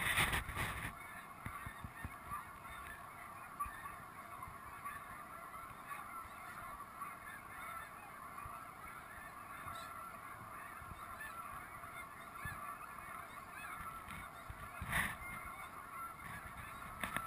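A large flock of snow geese calling together in a steady, continuous chorus. A thump comes right at the start and another near the end.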